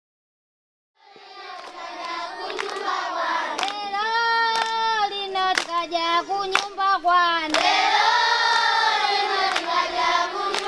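A group of children singing an African song together, with hand claps about once a second. It fades in about a second in.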